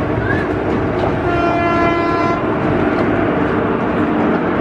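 Indian express train running through at speed, a steady rumble and clatter of wheels on track, with a single horn blast of about a second sounding about a second in.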